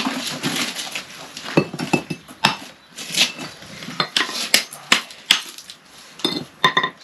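Brick hammer chipping old mortar off a salvaged perforated red brick: an irregular run of sharp clinks and knocks, some ringing briefly.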